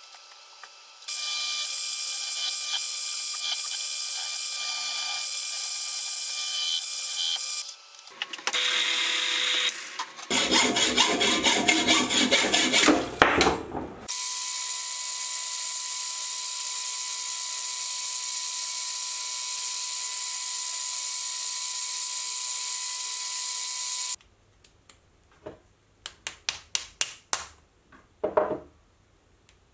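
Metal lathe running steadily while turning a part, with a louder, rougher stretch of cutting about ten seconds in. Near the end the machine stops, and a series of short scraping strokes follows from hand work on the part.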